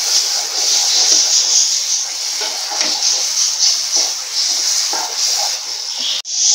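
Banana and sugar paste sizzling in ghee in a nonstick frying pan, a steady hiss, while a spatula stirs and scrapes through it. The sound breaks off for an instant near the end.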